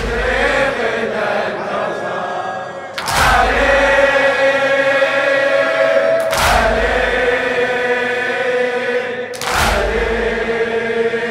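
Shia latmiyya: men's voices chanting a long-drawn refrain, with a heavy unison chest-beat thud from the mourners about every three seconds.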